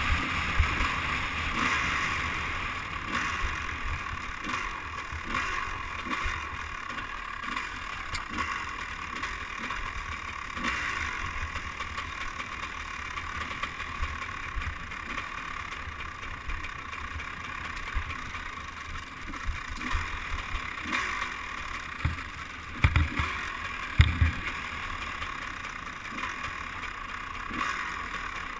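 Two-stroke dirt bike engine running steadily on a trail ride, heard muffled with wind noise on the microphone. Twice, about three-quarters of the way through, loud low thumps break in.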